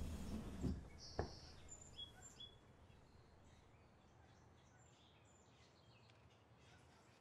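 Quiet ambience with a few short, high bird chirps about two seconds in and again around five seconds. A fading rush of noise and a sharp click come in the first second or so.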